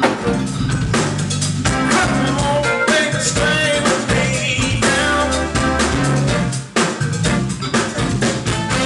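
Live band music with a drum kit beat, bass and a singing voice.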